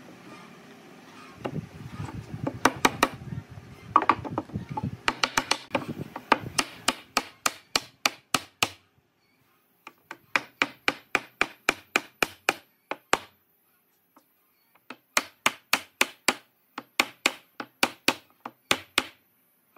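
A hammer taps a wooden block to drive a wooden bench top into the notched leg frames, in quick runs of sharp knocks, about three a second, with short pauses between runs. In the first few seconds, wood rubs and scrapes as the top is pushed into the notches.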